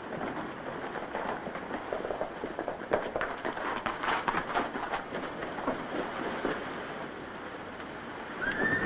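Horses galloping: a dense, irregular clatter of hoofbeats. Near the end comes a high, falling whistle-like tone.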